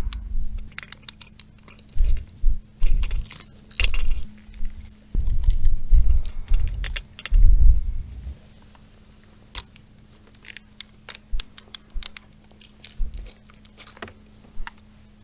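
Metal clinking and rattling of a hook and lure being worked free of a pike's mouth, with dull knocks from handling the fish in the first half and scattered clicks after.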